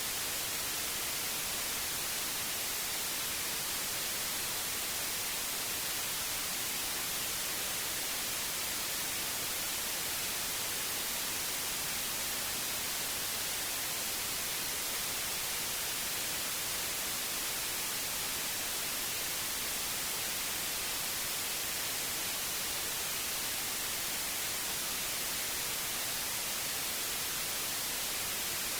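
Generated white noise: a steady, even hiss across the whole range, strongest in the highs, with no change.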